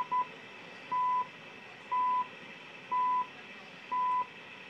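Shortwave time-signal beeps received on a Zenith 8S661 radio: two short pips at the start, then a steady one-per-second pure tone near 1 kHz, each beep about a quarter-second long, four in all, over a light bed of receiver static.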